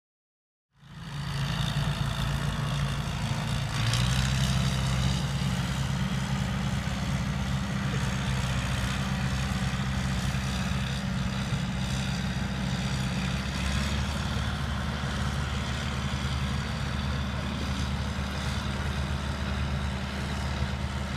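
Diesel engine of a lifeboat launch tractor running steadily as it tows an inshore lifeboat on its trailer. It starts about a second in.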